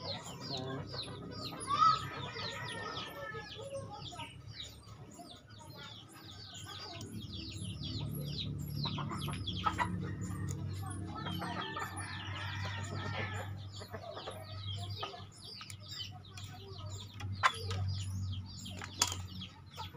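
Chickens clucking, with rapid high falling peeps repeating all through. A few sharp metal clicks and taps stand out: the loudest about two seconds in, more near the end. They come from small steel speargun trigger parts being forced into their housing by hand.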